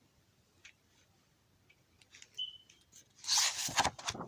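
A picture book's paper page being turned: faint handling clicks, then a loud papery swish and rustle about three seconds in.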